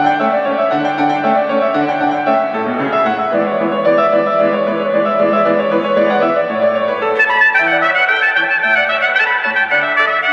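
Trumpet and grand piano playing a Baroque concerto movement together in a stream of short, quick notes. About seven seconds in, the trumpet line turns brighter and more prominent.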